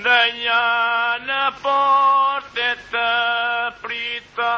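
Male singing of a Himara polyphonic folk song from an old 1930s disc recording, in short held phrases broken by brief pauses, with a faint record hiss in the gaps.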